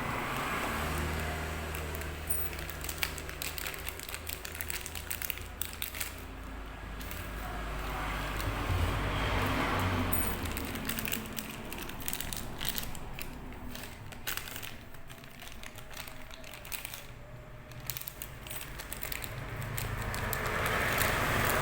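Crinkling and clicking of packaging and small parts being handled, over a low background rumble that swells and fades a few times.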